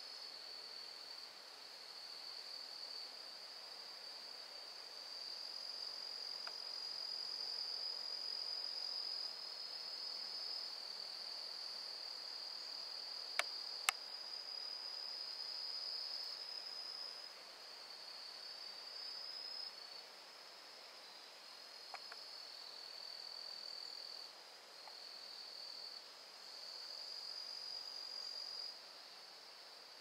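Insects singing: a steady high-pitched trill that swells and fades in stretches of several seconds. Two sharp clicks come about half a second apart a little before halfway through.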